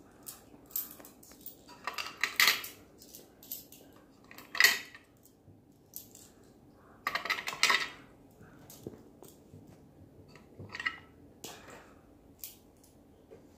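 Metal coins clinking and clattering as they are handled, in about eight separate bursts with short pauses between.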